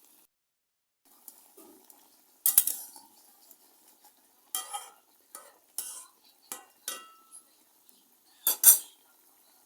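Metal spoon scraping and clinking against a cooking pot while stirring, in a string of separate sharp strokes, the loudest pair near the end.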